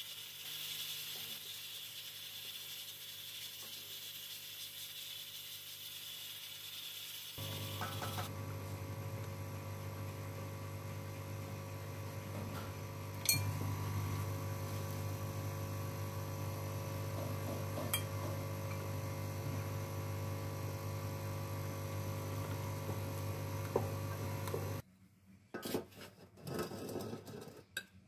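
Kitchen sounds over a steady hum, with a couple of sharp clicks, then near the end a metal spoon scraping and clinking on dishes as cooked basmati rice is served.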